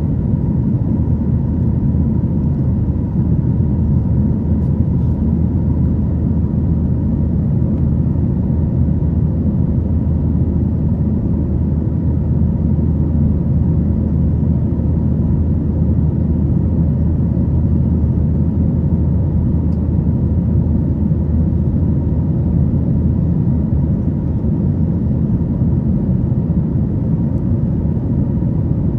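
Steady low roar heard inside the rear cabin of a Boeing 737-900ER in flight: its CFM56-7B turbofan engines and the airflow over the fuselage, with a faint steady hum.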